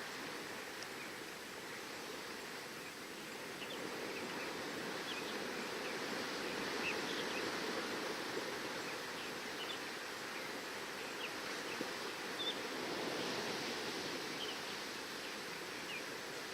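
Seashore ambience: a steady wash of surf with many short, scattered high bird chirps over it.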